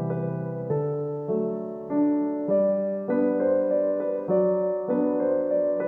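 Background solo piano music: an even, unhurried run of notes and chords struck about every half second.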